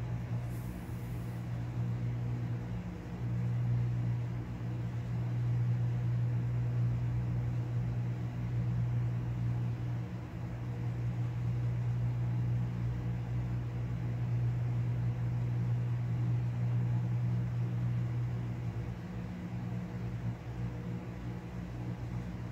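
A steady low mechanical hum, with a brief faint hiss about a second in.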